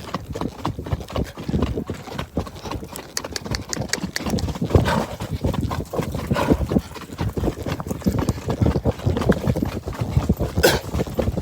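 Marwari horse's hooves striking the ground in a steady run of footfalls as it moves in its gait, with a brief sharp noise near the end.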